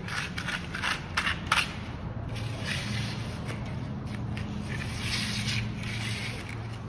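Steel hand trowel scraping and smoothing fresh concrete around a catch basin, in irregular short strokes, over a steady low hum.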